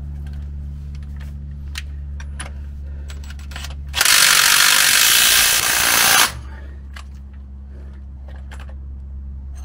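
Scattered metallic clicks and ratcheting from hand tools at the transfer case's twin-stick shifter linkage, over a steady low hum. About four seconds in, a loud rushing hiss cuts in for a couple of seconds and then stops.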